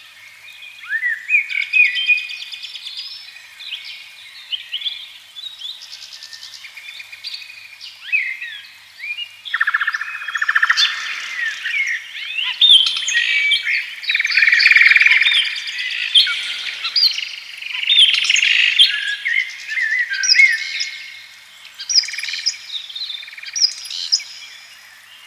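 Several birds singing and calling at once: many quick chirps and short rising and falling whistled notes overlapping, busiest in the middle.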